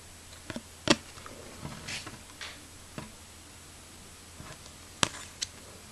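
Paper trading cards handled in a stack by hand: soft slides of card stock and a few light clicks and taps. The sharpest click is about a second in and another comes near the end.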